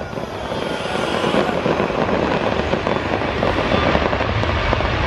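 Aerial fireworks crackling in a dense, continuous rumble, with no single sharp bang.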